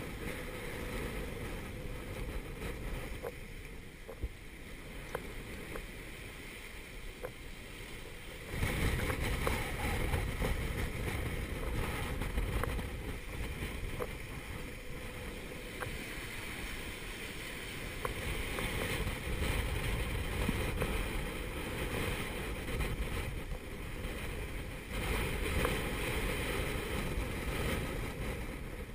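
Gale-force wind buffeting the microphone and breaking seas rushing past the stern of a small sailboat running downwind. The rush steps up in loudness about eight seconds in and stays up, with a few light clicks.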